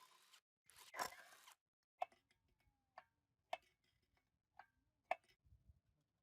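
Light workshop handling noises: a short scrape about a second in, then five sharp, separate clicks over the next three seconds, some with a brief metallic ring, like small metal parts or hand tools being set down or tapped.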